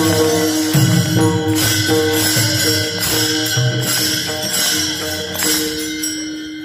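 Warkari bhajan accompaniment: mridang (pakhawaj) strokes and jingling taal hand cymbals beating about twice a second over steady held notes, fading near the end.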